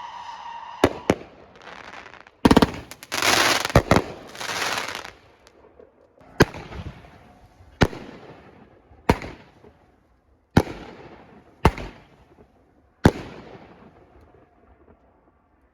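Consumer fireworks going off: two sharp bangs, then a couple of seconds of dense crackling, then six single loud bangs about every second and a half, each trailing off in an echo.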